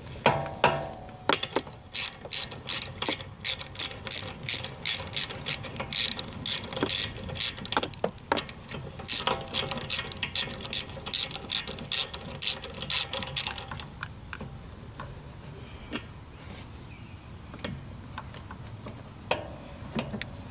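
Hand socket ratchet clicking in quick back-strokes, about two clicks a second, as a starter mounting bolt is backed out; the steady clicking stops about two-thirds of the way through, leaving only a few scattered clicks.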